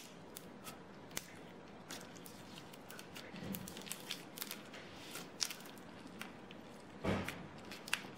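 Clear slime with rainbow strips of clay pressed flat and pulled apart by hand, giving scattered sticky clicks and crackles, with one louder squish near the end.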